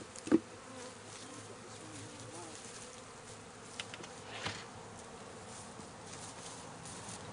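Honey bees buzzing around an opened hive, a steady hum with single bees passing close in wavering buzzes. A single sharp knock comes a moment in, with a few lighter clicks midway.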